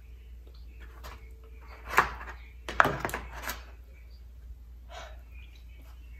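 Eating sounds from a meal out of a plastic takeout container: a few sharp clicks and short smacking noises about two and three seconds in, with a fainter one near the end.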